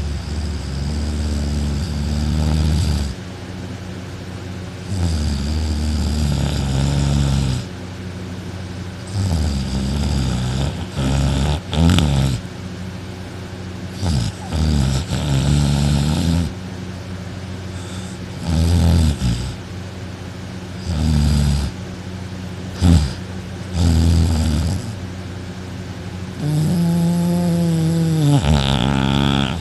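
A man snoring extremely loudly in deep sleep, on his back with his mouth open. About eight heavy snores come one every few seconds, some drawn out over two to three seconds and some short.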